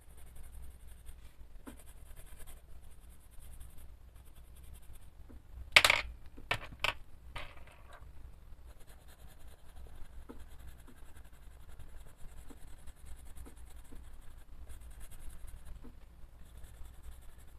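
Coloured pencil scratching on paper in runs of short shading strokes. About six seconds in there is a sharp click and a few lighter clacks as pencils are put down and picked up, and then the shading goes on.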